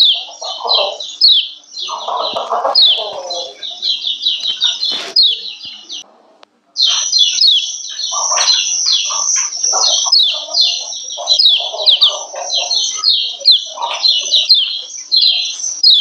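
Female yellow white-eye (kecial kuning) giving fast runs of short, high, downward-slurred 'ciak ciak' calls, a female call that puts males into breeding mood and sets them singing. The calls break off for under a second about six seconds in, then resume.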